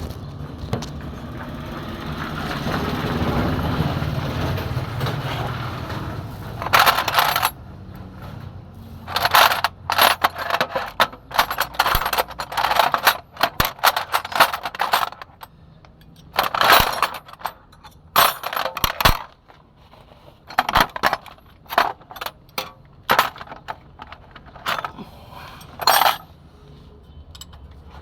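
Hand tools clinking and clanking on metal, irregular sharp metallic clinks with a short ring, as the starter motor is unbolted from under a fire truck. A low rumble runs through the first few seconds before the clinks start.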